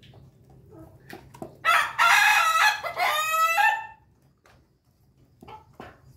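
A rooster crowing once, loud and close, a crow of about two seconds in several linked parts that ends on a lower, falling note. Soft scratching and pecking clicks from the flock sound before and after it.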